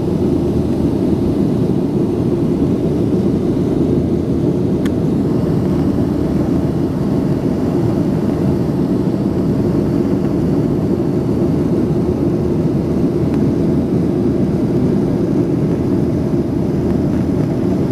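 Steady roar of a Boeing 737's jet engines and rushing air, heard from inside the passenger cabin as the airliner climbs after takeoff. A single faint click comes about five seconds in.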